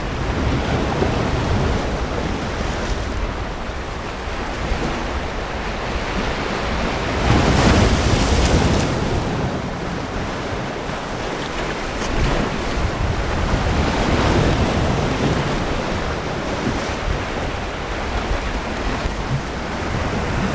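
Sea waves breaking and washing up a beach, a continuous surf wash that swells with each wave, the biggest about halfway through. Some wind rumbles on the microphone.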